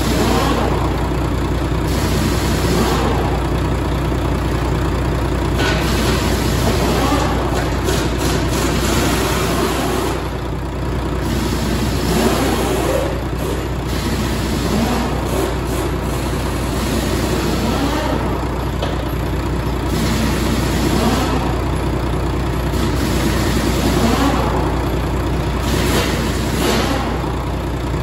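2002 Volvo VED12 inline-six diesel engine running in the truck, revved up and let back down to idle again and again, about every two to four seconds.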